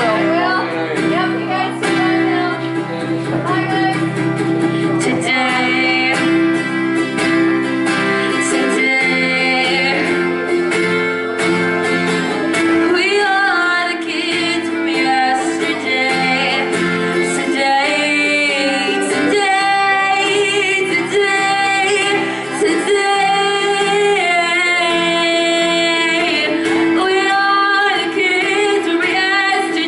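A young woman singing a song while playing an acoustic guitar.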